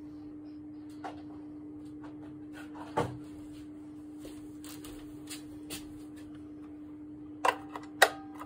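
Scattered clicks and knocks of handling, with two sharp plastic knocks near the end as the Texas Instruments Voyage 200 calculator is picked up and turned over to reach its battery compartment. A steady low hum runs underneath.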